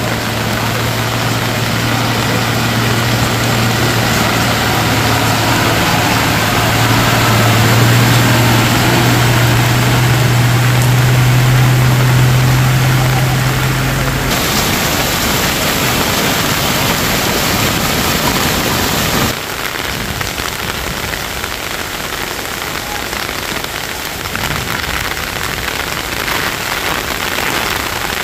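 Heavy rain and flowing floodwater hissing steadily, with a truck engine droning low through the first half, its pitch rising slightly partway. The sound changes abruptly about halfway and again a few seconds later.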